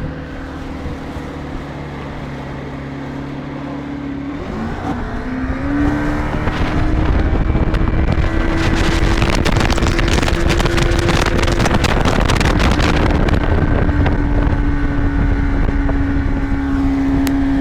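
Outboard motor running on a motorboat, revving up about four seconds in with a rising pitch and getting louder, then holding steady at speed. Wind and water rush loudly over the engine, strongest around the middle.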